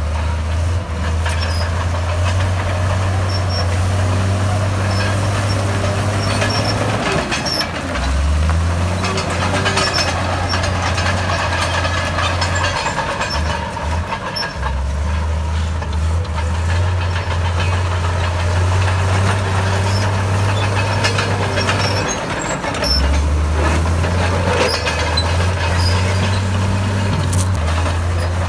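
Komatsu D68B bulldozer's diesel engine running hard while pushing soil, a steady low drone that dips briefly about three times as the load or direction changes.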